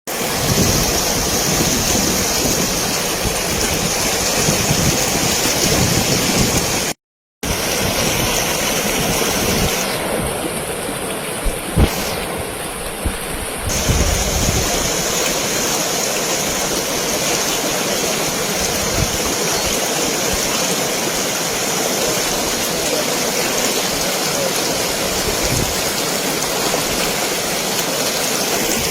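Steady rush of floodwater from a river that has burst its banks, with the sound cutting out briefly about seven seconds in.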